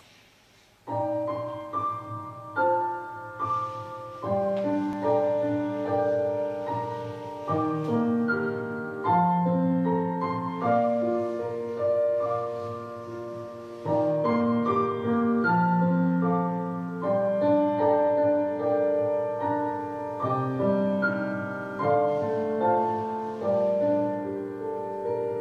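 Slow piano music of sustained notes and chords, starting about a second in.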